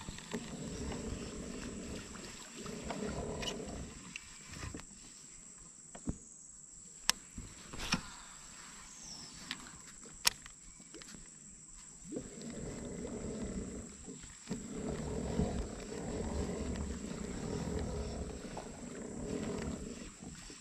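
Baitcasting reel being cranked to retrieve line, a rattling gear rumble in two long stretches with a quieter pause between them. A few sharp clicks fall in the pause.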